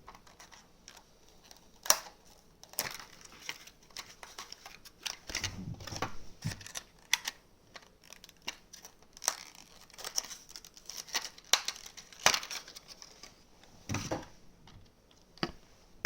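Product packaging being opened by hand: crinkling and tearing with irregular clicks and rustles.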